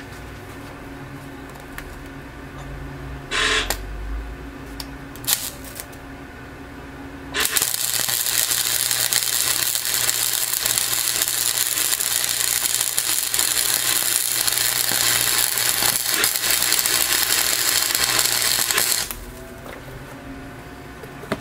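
Arc welder crackling steadily for about eleven seconds, starting about seven seconds in and stopping cleanly, with a low hum beneath: a bead being laid to seal the end cap of a homemade glasspack muffler. A couple of short knocks come before the arc is struck.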